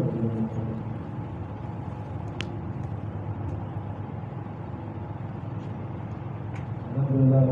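Steady background noise with a low hum in a gap between phrases of a man's chanted Quran recitation, with two faint clicks, one about two and a half seconds in and one about six and a half seconds in. The chanting voice comes back near the end.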